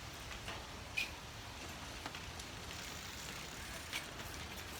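Steady hiss of rain with scattered drops ticking, and one sharper click about a second in.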